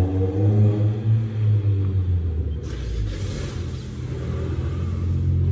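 Supercar engine rumbling at low revs, a little louder and uneven for the first couple of seconds, then settling into a steady idle.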